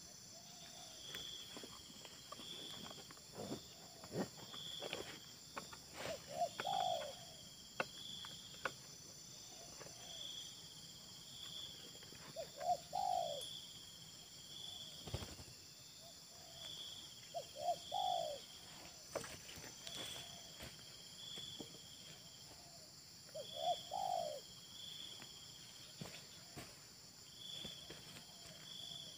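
Spotted doves cooing: a close bird gives a short multi-note coo phrase about every five to six seconds, and fainter coos answer in between. An insect chirps steadily in high-pitched pulses about once a second throughout, and a few sharp clicks and knocks come early on and near the middle.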